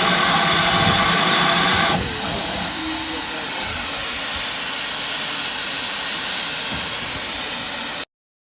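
Steam locomotive 2999 'Lady of Legend' letting off steam with a loud, steady hiss. For the first two seconds a steady tone with several pitches sounds over the hiss and stops abruptly. The hiss runs on and cuts off suddenly near the end.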